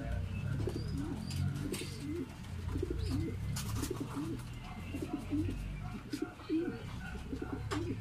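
Domestic pigeons cooing over and over in low, curved calls, with scattered sharp clicks and rustles and a low rumble underneath.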